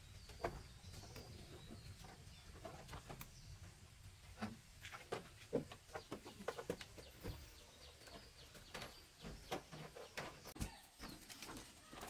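Footsteps and knocks on wooden veranda floorboards as a jackfruit is carried in and set down on the boards, with birds calling in the background.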